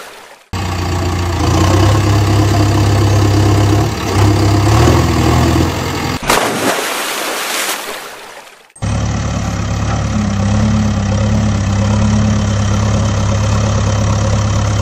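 Engine idling sound, a steady low hum, laid over the footage. About six seconds in it gives way to a loud rushing burst that dies away over a couple of seconds. A second idling-engine sound comes in about nine seconds in.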